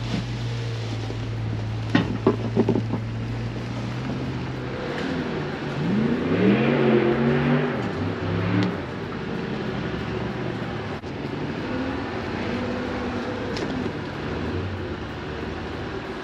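Jeep Rubicon's engine running at low revs, rising in pitch and falling back again about five seconds in, with a smaller rise and fall later. A few short knocks sound about two seconds in.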